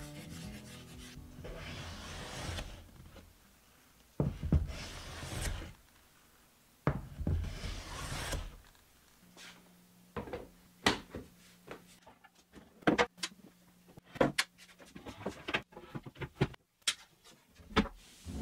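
Chalk rubbed across the face of a cherry board, then two longer rasping strokes on the wood. In the second half, light clicks and knocks as a laser engraver's metal frame and plywood enclosure are handled, over a faint steady low hum.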